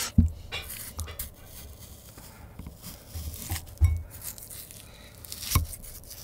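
Pink plastic spoon scraping and clicking against a small clear glass bowl while scooping a cold dessert, with scattered small clicks and a few soft thumps.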